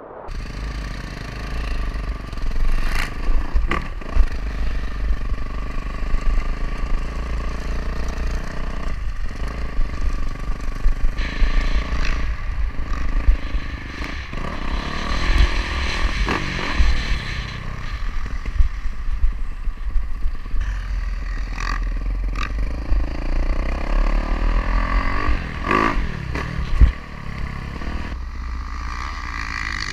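Yamaha YZ450F four-stroke single-cylinder dirt bike engine running under way, its revs rising and falling as the bike is ridden. Heavy wind buffeting on the microphone and a few sharp knocks.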